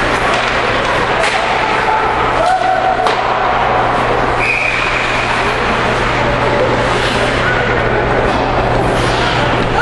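Ice hockey arena din: steady crowd noise and scattered shouts over the rink, with a short high whistle blast about four and a half seconds in as play is stopped.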